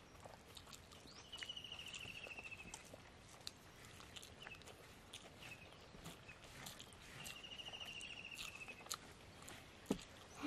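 Faint outdoor ambience with a high, buzzy trilling call about a second and a half long, heard twice, over scattered soft clicks.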